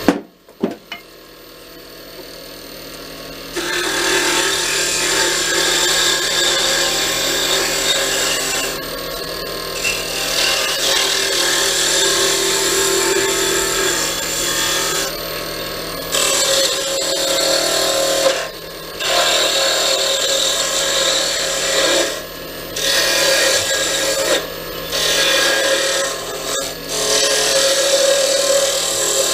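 Wood lathe running while a tool works a spinning cherry wood pen blank, a steady rough scraping over the motor's hum. After a short knock at the start it builds up over the first few seconds, then breaks off briefly several times as the tool is lifted from the wood.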